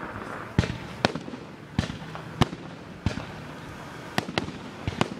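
Aerial firework shells bursting: a string of sharp bangs, about eight in five seconds, at uneven intervals.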